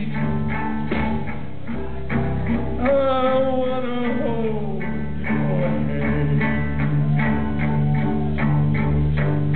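Rock band playing live: electric guitars, bass and drums on a steady beat, with a long falling, wavering note about three seconds in.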